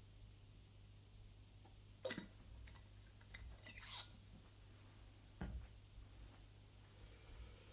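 Quiet studio room tone with a low steady hum and a few faint handling noises: a click about two seconds in, a short rustle around four seconds, and a soft thump a little later.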